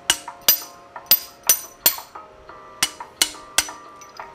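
Music under a 'please stand by' break: sharp clinking strikes over a few held notes, five quick strikes in the first two seconds and three more a little later.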